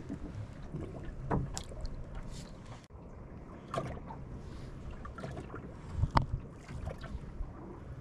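Water lapping against the hull of a small boat drifting on a calm sea, with a few sharp knocks and clicks on board, the loudest about six seconds in.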